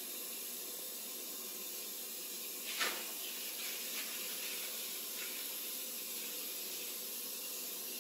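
Tap water running steadily from a sink faucet into a wash basin, filling it with warm water for a bed bath. One brief louder noise about three seconds in.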